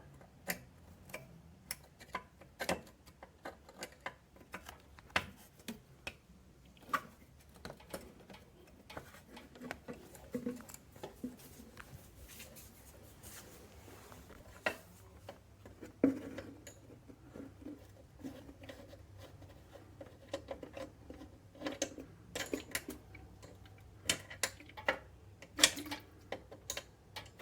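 Irregular light metallic clicks, taps and small knocks, with some scraping, from hands and a tool working at the drain screw and oil pan of an industrial sewing machine.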